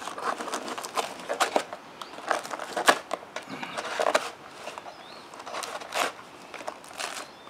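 Aluminium foil crinkling and tearing as a hot foil packet is cut open with a knife and pulled apart with a fork: irregular crackles and rustles.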